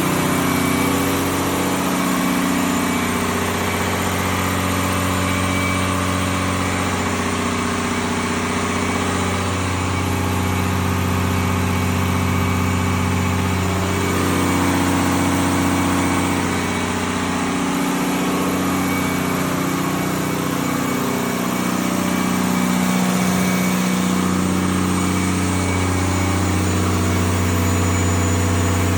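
Cummins QSM11 inline-six diesel engine running steadily on test, its pitch shifting slightly now and then.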